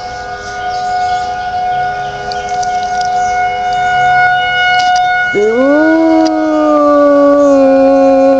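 Civil defense warning siren sounding a steady tone. About five seconds in a dog joins in with a long howl that rises quickly and then holds, slowly sagging in pitch, over the siren.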